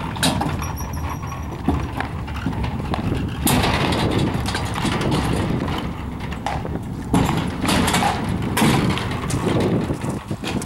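Wheels of a boat dolly rolling over a concrete driveway under a hand-pushed race boat, a continuous rough rumble with a few sharp knocks.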